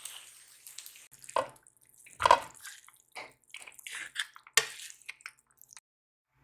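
Water splashing and dripping in a run of irregular splashes, a few of them louder, stopping shortly before the end.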